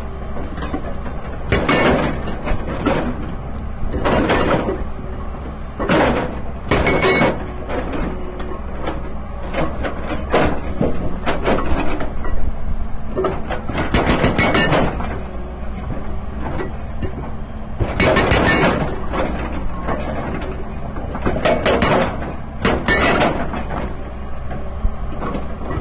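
SHS 81 hydraulic rock breaker on an excavator hammering rock, in bursts of rapid chisel blows about every two seconds, over the steady drone of the excavator's engine.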